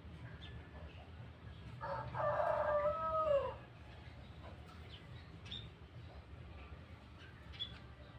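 A rooster crows once, about two seconds in, for about a second and a half, its pitch falling at the end. Faint, short, high chirps are scattered throughout, from a young scaly-breasted munia (emprit batik) practising its song.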